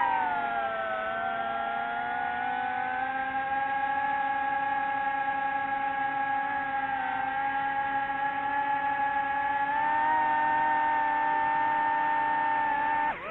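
Drone motors and propellers whining steadily in flight. The pitch drops slightly at the start and steps up a little about ten seconds in.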